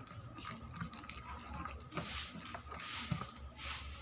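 Sticky glue-and-detergent slime squishing as it is mixed, with a few wet squelches in the second half.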